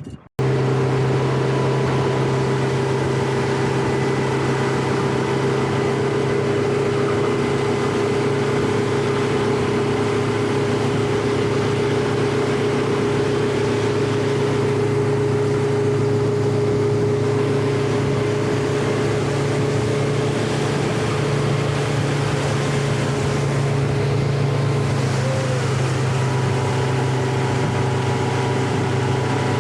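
Motorboat engine running at a steady speed with a constant drone, starting abruptly about half a second in.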